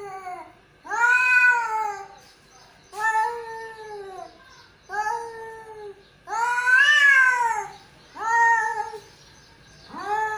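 A tomcat yowling (caterwauling) at a rival male cat face to face: a series of about six drawn-out yowls, each about a second long and rising then falling in pitch, with short pauses between. This is the typical threat call of two toms in a standoff.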